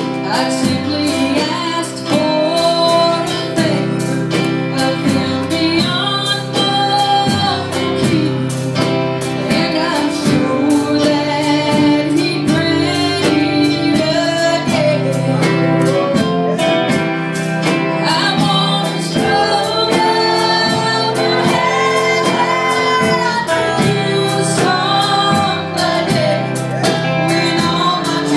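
A woman singing a gospel song over guitar accompaniment with a steady beat.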